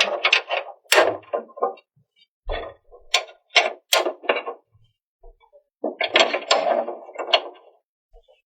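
Toy pieces and packaging being handled: quick runs of clicks, knocks and rustling in bursts with short pauses between them.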